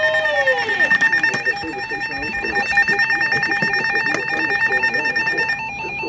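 Emergency alert tones from weather alert radios going off together, signalling an incoming severe thunderstorm warning. A steady high tone sounds over a rapid beeping, and the steady tone cuts off about five and a half seconds in while the beeping continues.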